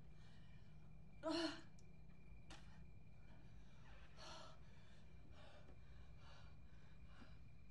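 A woman gasping and breathing heavily and raggedly, with one louder voiced gasp about a second in and a string of quieter breaths after it, over a faint steady hum.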